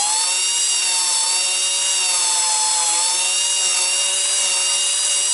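Valve seat grinder motor spinning a grinding stone at high speed while the stone is dressed to a fresh, clean face: a steady high-pitched whine over a grinding hiss.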